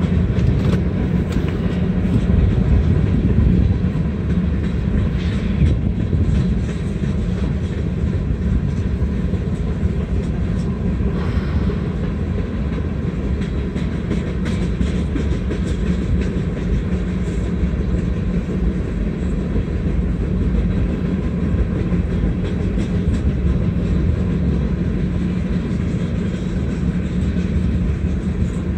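Norfolk Southern freight train's tank cars rolling steadily past over a road crossing: a continuous rumble of steel wheels on the rails.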